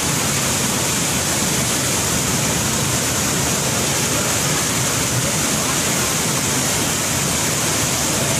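Waterfall crashing down: a loud, steady rush of falling water.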